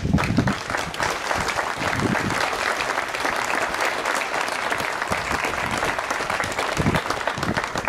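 Large crowd applauding, a steady dense clapping that dies away at the end.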